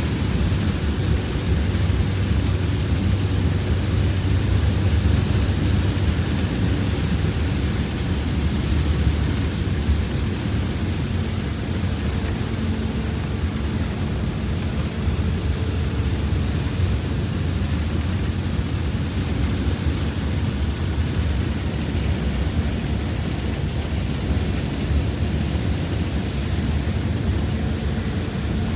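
Detroit Diesel 8V92TA two-stroke V8 diesel, freshly fitted with four new pistons and liners, running steadily under way at road speed in a Wanderlodge motorhome, heard from inside the cab as a steady low rumble mixed with road and wind noise.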